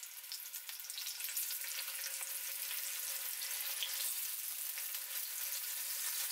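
Masala-coated pomfret pieces shallow-frying in a little hot oil in an iron skillet: a dense crackling sizzle. It gets louder over the first couple of seconds as more pieces are laid in, then holds steady.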